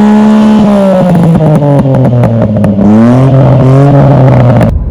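Daihatsu Cuore's small three-cylinder engine revving through an HKS aftermarket exhaust, pitch falling off, rising and dropping again, with a rapid run of pops and crackles from the exhaust as the revs come down. The sound cuts off abruptly near the end.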